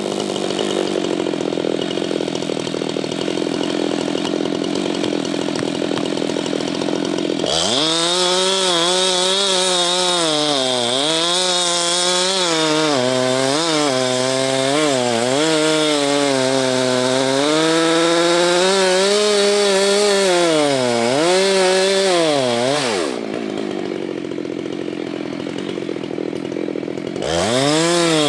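Husqvarna 390XP two-stroke chainsaw with a 37-inch bar running at high throttle while slabbing a pine stump, its pitch dipping and recovering over and over as the chain loads in the cut. The engine note drops for a few seconds near the end, then revs up again.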